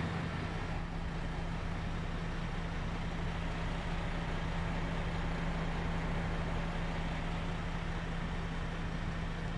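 Heavy truck's diesel engine idling steadily, a constant low hum with no change in speed.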